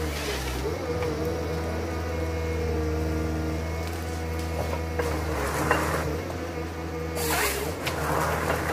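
Prosilva S4 harvester's diesel engine running steadily, with a wavering hydraulic whine as the crane swings the Waratah harvester head. Two bursts of noisier sound come about five and seven seconds in.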